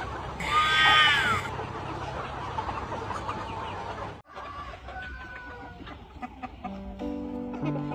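Flock of chickens clucking together, with one loud drawn-out call about half a second in. The sound cuts off about four seconds in and picks up as quieter clucking, and music with held notes comes in near the end.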